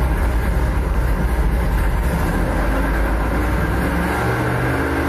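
Tall-deck 452 cubic inch small block Chevy V8 with SB2 heads running on an engine dyno, loud and steady. About four seconds in, its low rumble gives way to a clearer, higher note as it starts to rev.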